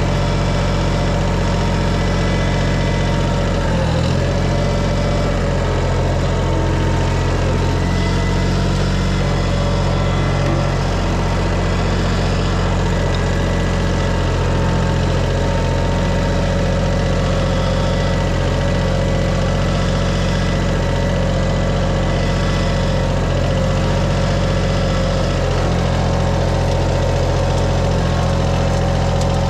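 Engine running steadily at an even speed, a constant low drone with no change in pitch or loudness.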